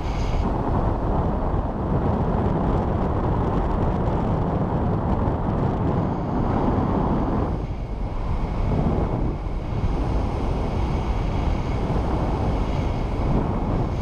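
Wind rushing over the microphone of a powered paraglider gliding with its engine out: a steady buffeting rush with no engine note, easing briefly about eight and nine and a half seconds in.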